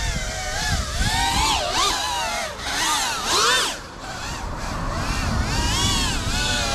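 FPV quadcopter's electric motors whining, the pitch sweeping up and down again and again as the throttle is worked, over a low rumble.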